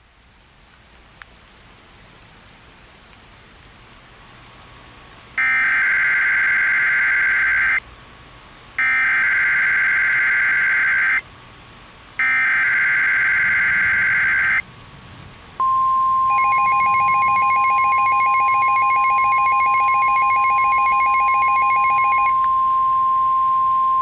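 Emergency Alert System SAME header: three bursts of digital data tones, each about two and a half seconds long with a second's gap between them, then the NOAA Weather Radio warning alarm tone, one steady high beep that holds to the end. For about six seconds a second, rapidly pulsing tone sounds on top of the alarm tone. Faint radio hiss rises before the first burst.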